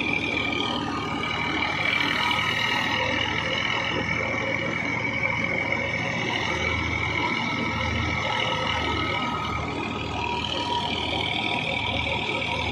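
Massey Ferguson tractor driving a stationary thresher through its driveshaft: the engine runs steadily under load while the thresher's drum and pulleys whir, with a steady high whine over a low hum.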